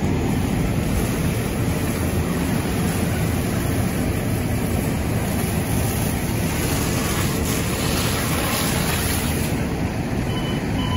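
Steady rushing, rumbling noise of a fire hose stream spraying burning brush, over a running engine.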